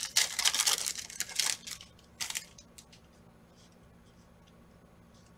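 Foil wrapper of a 2021 Panini Prizm football pack being torn open and crinkled by hand. A burst of crackling runs for about two seconds, then comes one short crinkle, then only a few faint ticks.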